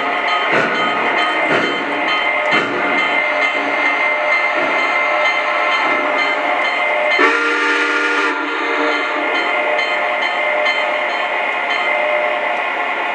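Sound system of an O scale three-rail Southern Pacific Daylight steam locomotive model: slow steam chuffs about once a second, fading after the first few seconds, over a steady background of engine sounds. A single whistle blast of about a second sounds around seven seconds in.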